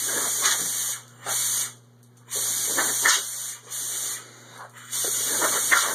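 Compressed air hissing from an air-compressor hose in five short spurts, each about half a second to a second long.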